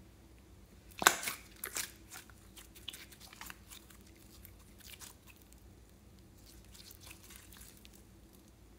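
Glossy yellow slime being stretched and handled: a loud sticky crackle about a second in and another just after, then faint scattered crackles and pops.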